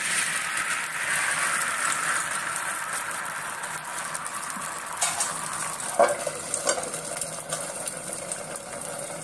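Thin rice batter poured onto a hot iron griddle, sizzling and slowly fading. A couple of sharp metal knocks come about five and six seconds in as a steel lid is set down over the pan.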